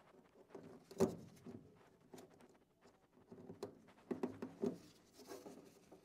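Faint clicks, knocks and scraping of gloved hands working among parts inside a gas furnace cabinet, with one sharper knock about a second in and a quick run of knocks around four seconds in.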